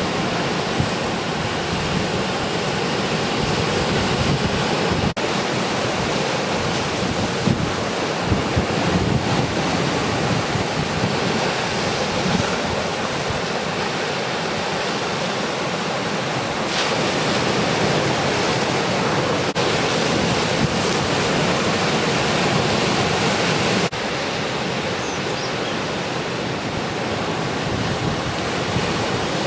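Ocean surf breaking and washing in a continuous rush, with wind buffeting the microphone.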